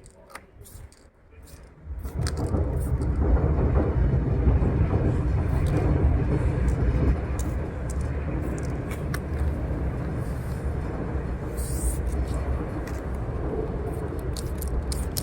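A vehicle's low, steady rumble that starts suddenly about two seconds in, is loudest for the next few seconds, then eases slightly and carries on.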